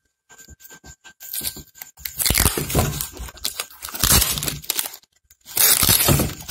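Packing tape being ripped and peeled off a cardboard tube by hand: loud rasping tearing that builds from about a second in, breaks off briefly after about five seconds, then comes back loud near the end.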